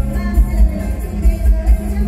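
Live mor lam band music in a toei set, with a heavy bass-drum beat about twice a second over steady low held notes.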